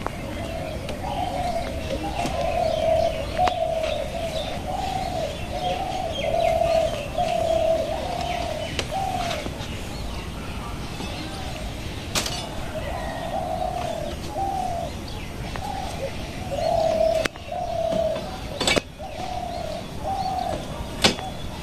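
A dove or pigeon cooing in a long series of short repeated calls, with a pause about halfway, over fainter chirping of small birds. A few sharp clicks come in the second half.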